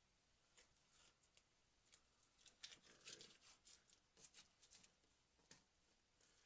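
Faint crackling and rustling of masking tape being peeled off a painted model, in short scattered bursts, busiest from about two and a half to four seconds in.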